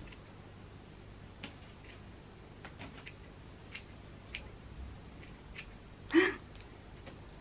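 Hair-cutting scissors snipping through the ends of long hair: a scattered series of faint, crisp snips, with one louder short sound about six seconds in.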